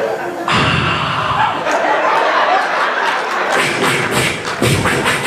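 Comedy club audience laughing and cheering, with a few heavy thumps at about half a second in and near the end.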